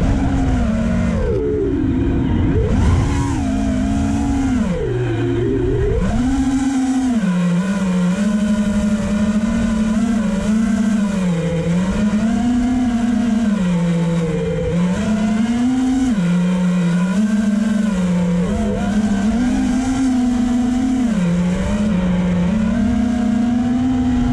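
FPV quadcopter's brushless motors and propellers whining, the pitch rising and falling with the throttle: swooping dips in the first few seconds, then repeated steps between two pitches.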